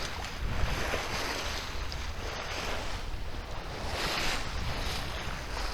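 Water rushing along the hull of a sailboat under sail, with wind buffeting the microphone; the rush of water swells up about a second in and again about four seconds in.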